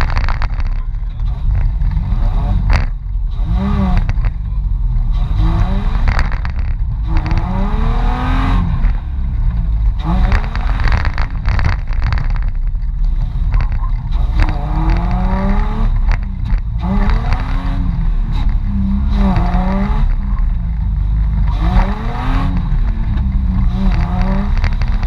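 Mitsubishi Pajero's engine revved up and down over and over, a rise and fall every second or two over a constant heavy rumble: a 4x4 working to get free in deep snow.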